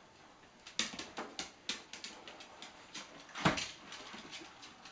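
Dogs sniffing at a live Dungeness crab: an irregular run of short, sharp snuffles, several a second, with one louder snort about three and a half seconds in.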